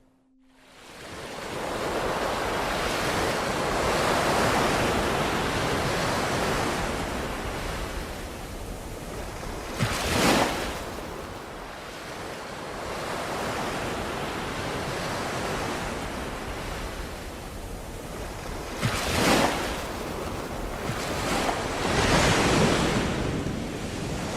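Ocean waves washing in, fading up from near silence at the start and swelling and easing, with two brief louder splashes about ten seconds in and again near twenty seconds.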